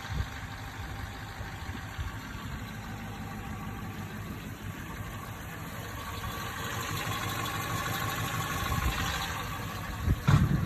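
Aston Martin V8 Vantage 4.7-litre V8 idling warm, with the ticking noise that the owner hears only once the engine has warmed up and that revving seems to cure. It gets a little louder for a few seconds in the second half, and a few loud low thumps come near the end.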